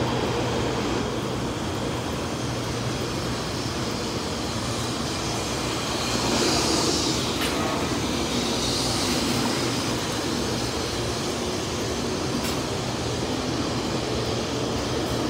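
Taiwan High Speed Rail 700T trainset rolling slowly along a station platform, a steady hum of its traction motors and wheels on the rail. A brief hiss comes about halfway through.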